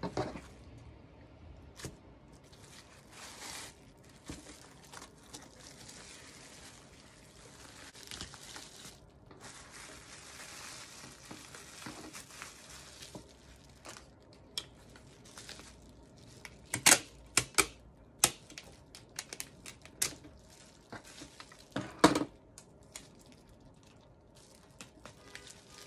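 Bubble wrap rustling and crinkling as it is folded by hand around a tin, with a cluster of sharp, loud crackles about two-thirds of the way through.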